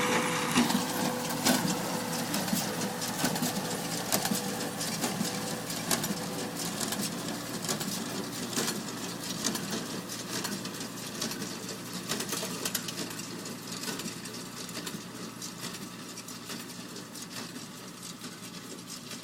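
John Deere 24T hay baler and its tractor running: a steady mechanical clatter with many small clicks, growing gradually fainter.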